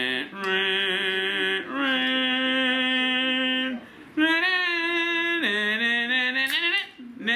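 A man singing a string of long, drawn-out notes, about four held notes with short breaks between them. The last note dips down in pitch and climbs back up near the end.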